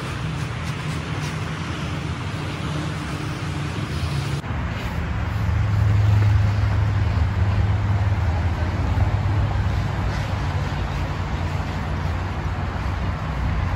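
Road traffic noise from a busy street: a steady low rumble of passing cars, growing louder about five seconds in.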